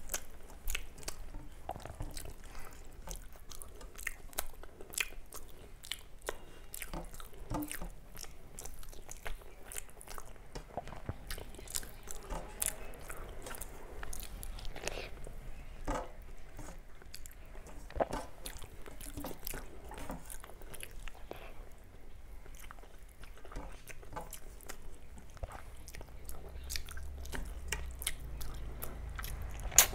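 A person eating a rice and curry meal at close range: chewing and biting, with crunchy bites and many small irregular mouth clicks, and one sharp click near the end.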